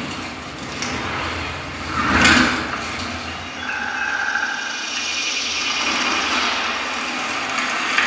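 Forest ambience soundtrack played through a Sony HT-IV300 5.1 home theater: a steady airy hiss with short bird chirps, and a rushing whoosh that swells and fades about two seconds in.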